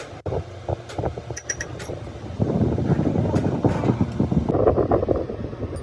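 Machinery running with a dense, irregular clatter of knocks that grows louder about two and a half seconds in.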